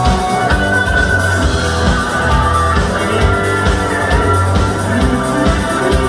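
Instrumental break of a rock song without vocals: a drum kit keeps a steady beat under sustained chords.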